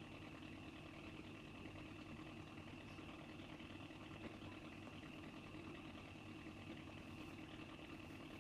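Icom IC-R8600 receiver's speaker playing 2.4 GHz WiFi demodulated in AM: a faint, steady buzzing hiss with a constant high whine running through it.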